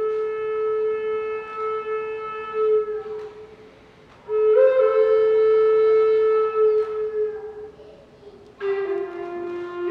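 An Andean wind instrument sounding long held notes in three phrases of about three seconds each, with short breaks between them.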